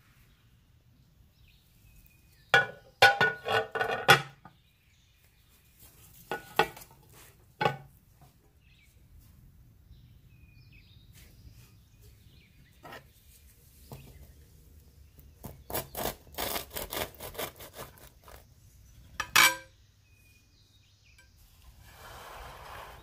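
Cast-iron skillet and plate clattering, a few ringing knocks and scrapes, as the tortilla bake is turned out. Later, a quick run of crackling strokes as a knife cuts through the crisp baked tortilla crust, ending in a sharp ringing clink of metal on the plate.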